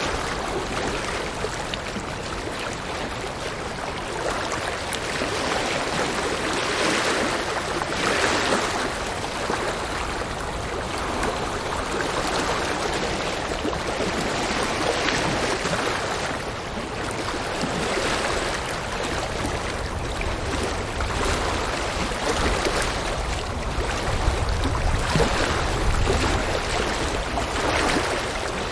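River water rushing over rocks: a steady flowing noise that swells and eases every few seconds. A low rumble joins in during the second half.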